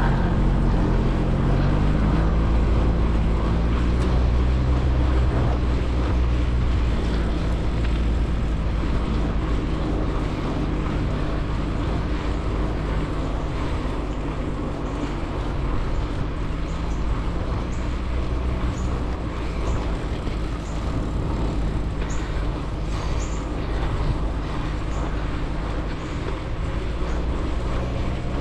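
Bicycle riding on a paved trail, heard at the handlebars: a steady low rumble of wind and tyre roll with a pitched tyre hum that rises in the first couple of seconds as the bike speeds up, then holds.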